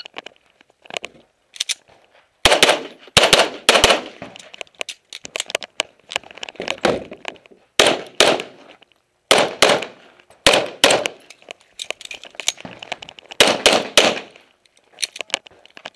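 Semi-automatic pistol firing a string of about a dozen shots, mostly as quick pairs with pauses of a second or more between groups, each shot sharp with a short echo.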